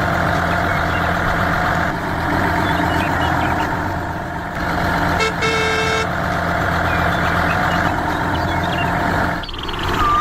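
Vehicle engine running steadily, with a short horn honk about five seconds in.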